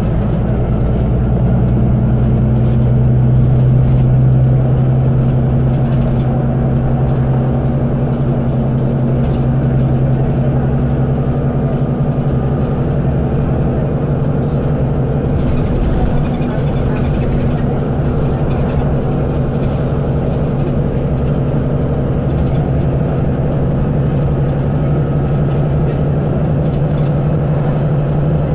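Volvo B9TL double-decker bus's six-cylinder diesel engine running steadily with its drone and road noise, heard from inside the passenger saloon, a little louder a few seconds in.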